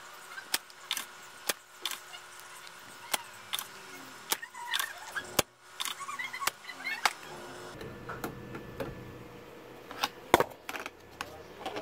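Sharp irregular clicks and taps, a dozen or more, from a soldering iron and a TV power-supply circuit board being handled while a MOSFET is desoldered. The clicks pause for a couple of seconds and then come again in a last cluster near the end.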